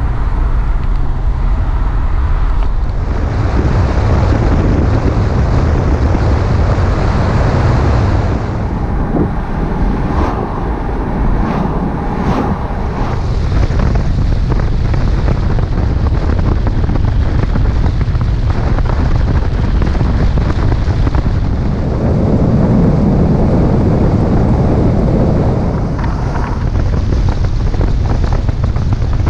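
Porsche Boxster driven on the open road with the roof down: loud, steady wind rush over the microphone with engine and tyre noise underneath.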